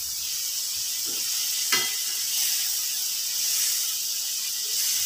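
Vegetable and dried-anchovy curry sizzling steadily in a metal wok as it is stirred with a perforated metal spoon. About two seconds in, there is a single sharp, ringing clink of the spoon against the wok.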